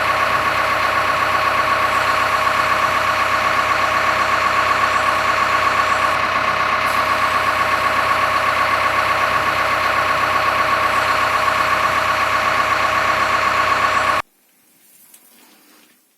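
JCB 3DX backhoe loader's diesel engine running steadily, with a strong, even hum over a fine pulsing rhythm. It cuts off abruptly about 14 seconds in, leaving near silence.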